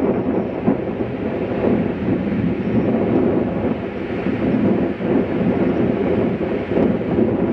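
Strong sea wind buffeting the camcorder's microphone in a loud, steady rush, with ocean surf breaking beneath it.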